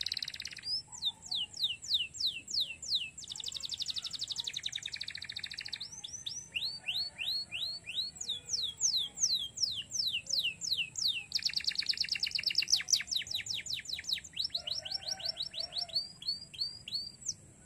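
Domestic canary singing a long, varied song: runs of quick, high, falling whistled notes, about three or four a second, alternating with fast buzzing trills.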